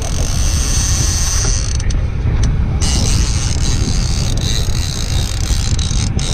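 Conventional trolling reel cranked steadily under load from a hooked albacore tuna, its gears and handle clicking and creaking, over a steady low rumble.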